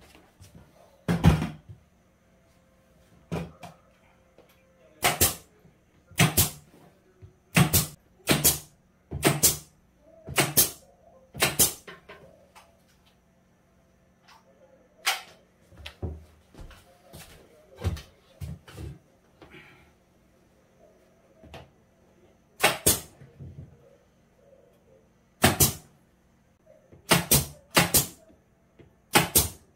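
Pneumatic nail gun firing, one sharp shot at a time at irregular intervals, sometimes two in quick succession, over a faint steady low hum.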